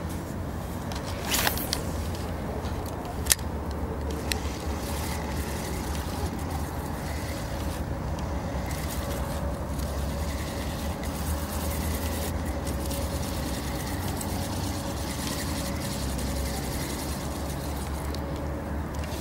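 A small motor running with a steady low rumble and a faint, even whine. A few sharp clicks come in the first few seconds.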